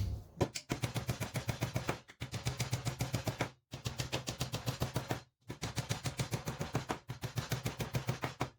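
Rapid, evenly spaced knocks, about eight a second, in runs broken by short breaks: the joints of a wooden Commercial hive brood chamber being tapped together with a hammer.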